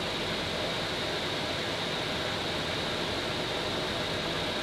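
Steady flight-deck background noise of a Boeing airliner in flight: an even hiss of airflow and air conditioning that does not change.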